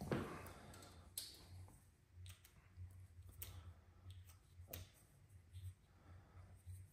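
Faint, scattered clicks and taps of a hand socket tool being fitted to and worked on a lawn tractor engine's spark plug, over a faint low hum that comes and goes.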